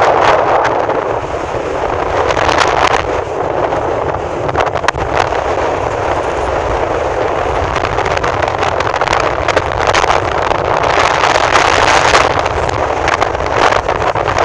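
Wind blowing hard across the microphone over the rush of the sea, with frequent short crackles from the gusts.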